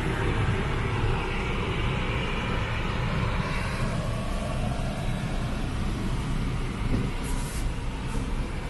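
Steady low rumble with a hiss over it, heard inside a car's cabin, and a brief high hiss about seven seconds in.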